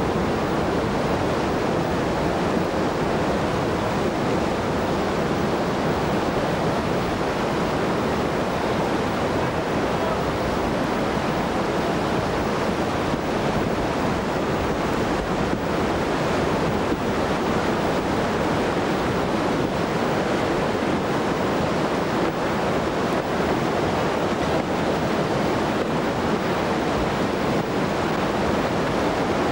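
Whitewater river rapids rushing steadily, a dense unbroken sound of breaking water.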